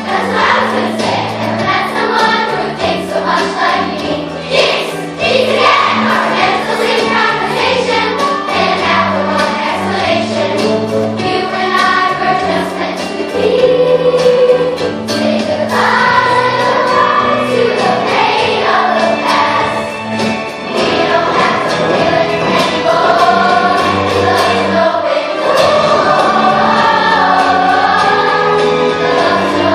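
A large youth choir of girls and boys singing together in several parts, with steady low notes beneath the voices; the singing grows louder about halfway through.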